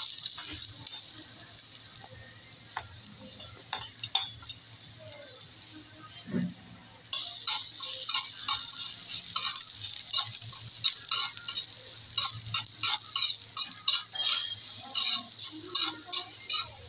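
Ginger sizzling in hot cooking oil in a metal wok. About seven seconds in, the sizzle grows louder and a metal spatula starts stirring, scraping and tapping the wok about two to three times a second.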